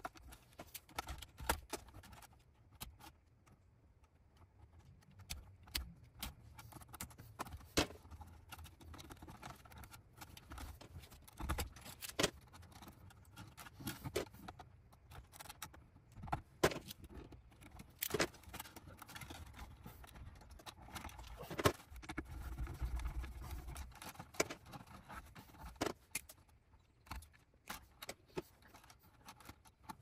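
Handling noise from fire alarm cable being worked into a plastic ceiling electrical box: scattered clicks, taps and rustling of wires against the box, with a few louder knocks.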